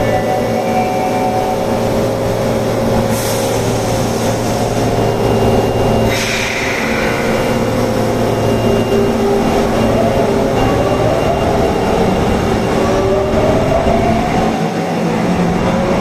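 Osaka Metro Tanimachi Line subway train, car 22618, running with a steady electrical hum and drone. There are two short hisses of air about three and six seconds in. From about ten seconds in, the motor tones rise in pitch as the train picks up speed.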